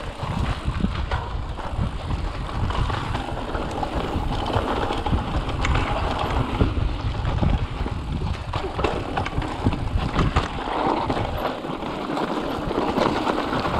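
Mountain bike riding fast over a dirt and rocky trail: steady tyre crunch and frame rattle over the bumps, with wind buffeting the microphone.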